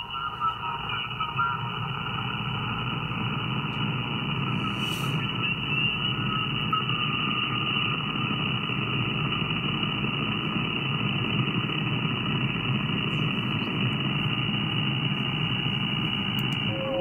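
Static from an SDRplay RSP2 software-defined radio receiver tuned across the band around 440–540 kHz: a steady hiss and rumble cut off above about 3 kHz, with faint whistle tones in the first few seconds.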